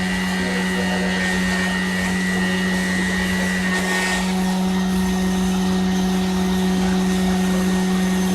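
Shop machine motor running steadily with a constant low hum and fainter steady higher whines, from the CNC engraving setup. A brief swell of hiss comes about four seconds in.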